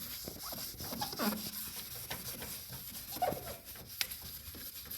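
Damp wipe rubbing ash across fireplace door glass, with a few short pitched squeaks as the cloth drags on the glass and a sharp click about four seconds in.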